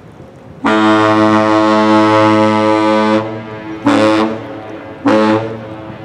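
Great Lakes bulk freighter's horn sounding one long blast of about two and a half seconds, then two short blasts: the one-long-two-short signal of a master's salute. Loud, with a rich, chord-like tone.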